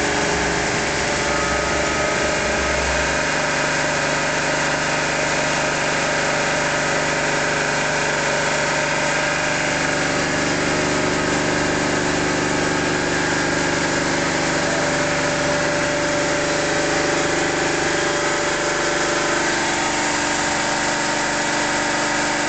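Milk homogenizer running steadily: an electric motor driving a brass three-plunger high-pressure pump, pumping a mix of water and food oil through the homogenizing valve. Its tone shifts slightly a few seconds in and again late on.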